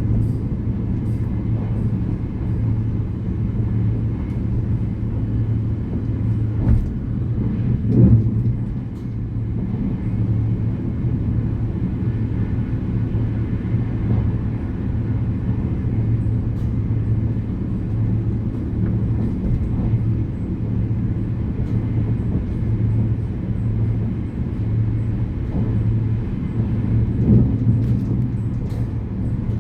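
Passenger train running, heard from inside the carriage: a steady low rumble with a few louder knocks, about 7, 8 and 27 seconds in.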